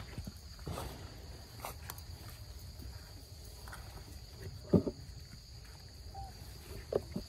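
Steady high insect drone, with a few short rustles and knocks on dry leaf litter, the loudest about five seconds in.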